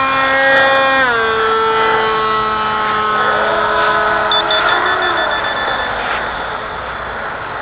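Battery-powered electric motor of a large foam RC model F-22 in flight, a steady whine that drops in pitch about a second in; a second whining tone rises and falls around the middle.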